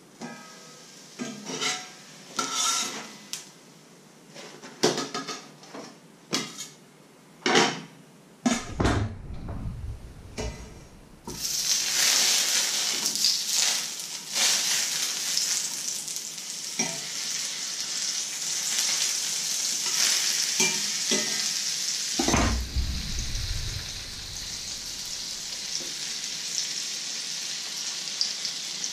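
Pots, a lid and a pan clattering and knocking on the hob, then, from about a third of the way in, butter sizzling loudly in a hot frying pan. A low thump comes about two-thirds in, and the sizzle goes on a little quieter after it.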